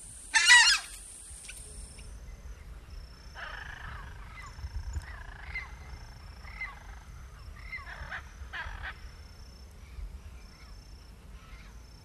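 Southern screamer giving one loud, short call about half a second in. Fainter, scattered bird calls follow over a low outdoor background.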